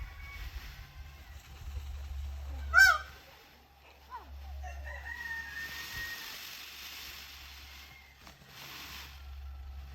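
A peacock gives one loud, short call about three seconds in, with fainter bird calls after it.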